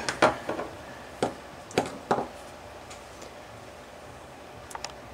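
A handful of light knocks and clicks as a small aluminium model four-stroke engine is handled and set down on a work mat, mostly in the first two seconds, with a couple of faint clicks near the end.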